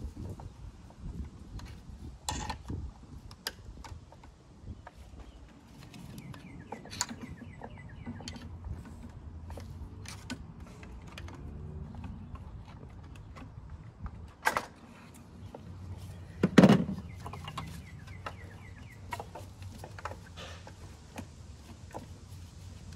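Hand work in a car engine bay: scattered small clicks, taps and rattles of parts and fittings being handled, with one louder knock about two-thirds of the way through.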